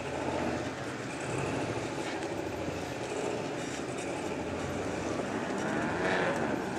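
Engines of two off-road rock-racing buggies running and revving as they crawl over rocks, the revs rising and falling, most strongly near the end.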